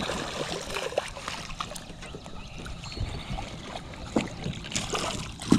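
A hooked bass splashing and thrashing at the water's surface beside a boat as it is reeled in, with scattered knocks and one sharp knock, the loudest sound, near the end.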